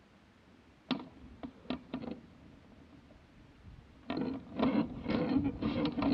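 Hang-glider gear being handled: a few sharp clicks and knocks, then from about four seconds in a louder, irregular rattling and rustling as the glider is lifted and swung round.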